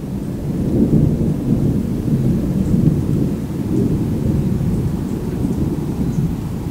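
Thunder rumbling: a continuous low rolling rumble that swells and fades with no sharp crack.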